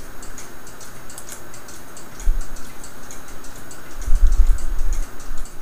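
A mechanical clock ticking quickly and steadily, with low thumps from handling on the bench about two seconds in and again around four to five seconds.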